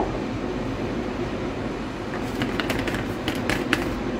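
Plastic spice jars being handled and a salt jar's lid taken off: a series of light clicks and taps from about two seconds in, over a steady low hum.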